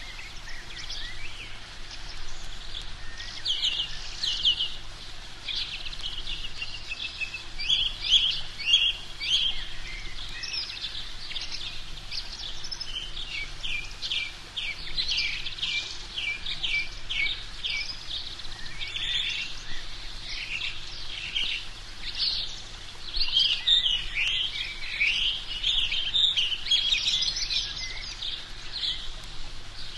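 Birds chirping and singing, a dense chorus of short, high calls and trills that overlap without pause.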